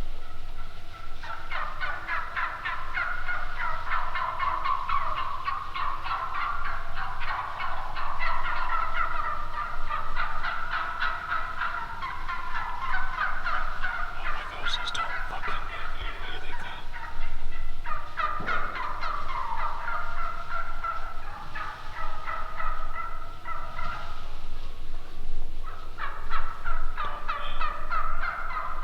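Turkeys gobbling, many rapid rattling gobbles overlapping one another almost without a break, with a couple of brief lulls.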